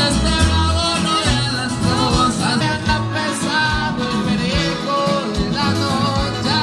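Background music with a singing voice and a repeating low bass line.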